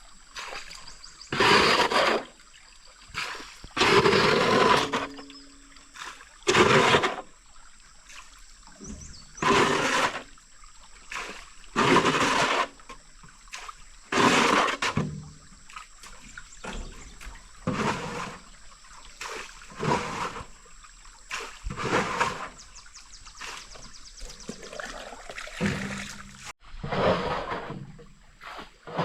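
Water splashing or being poured in repeated short bursts, roughly every two to three seconds.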